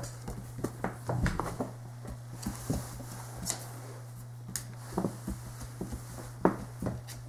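Dogs' claws clicking and tapping irregularly on a hardwood floor as they play, with a sharper knock near the end, over a steady low hum.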